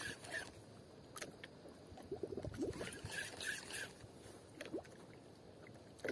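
Faint water lapping and gurgling against the hull of a small wooden outrigger boat, with a few light ticks.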